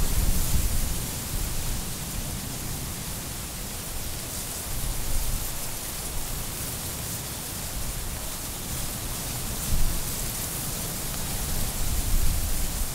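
Steady hiss of rain falling on tropical foliage. A low rumble fades away in the first second and builds again near the end.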